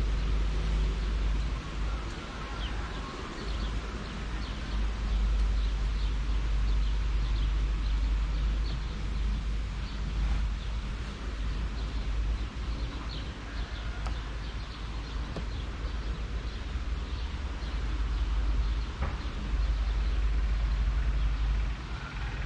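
Birds chirping in short, repeated calls over a steady low rumble of wind on the microphone.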